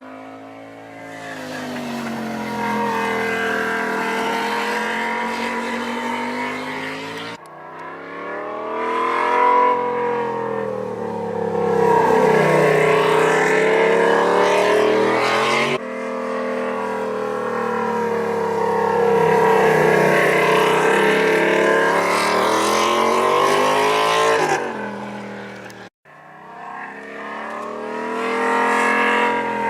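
Yamaha MT-07's parallel-twin engine through a Yoshimura exhaust, revving up and down repeatedly as the bike is ridden hard through a series of bends. The sound is broken by abrupt cuts about 7, 16 and 26 seconds in.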